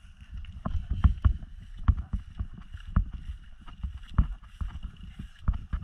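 Footsteps in rubber slides on a wet, muddy grass path: irregular soft thuds and squelches, about two steps a second.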